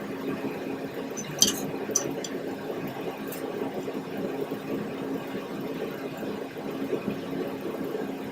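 Steady machine hum with a constant low tone, with a few sharp metallic clinks about one and a half to two seconds in.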